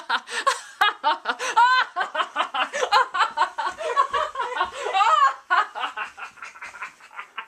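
Hearty laughter: a rapid, continuous run of short ha-ha bursts, several a second, thinning out toward the end.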